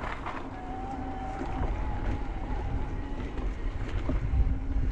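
Electric mountain bike's motor whining steadily under pedalling, over the rumble of tyres and wind noise on the trail, with a couple of sharp rattles near the start.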